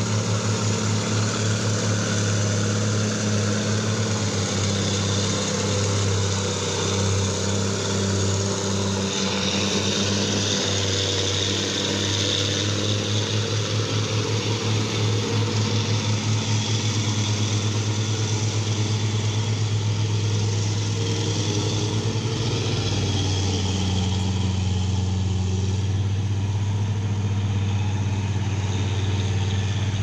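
Heavy diesel engines of logging machinery running steadily, a low throbbing drone whose note shifts a little about two-thirds of the way through.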